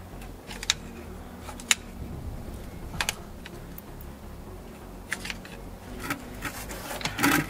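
Irregular sharp metallic clicks and knocks, roughly a second apart, of a screwdriver prying at the inner end of a front CV axle that is still stuck in the transmission, held by its retaining spring clip. A louder cluster of knocks comes near the end.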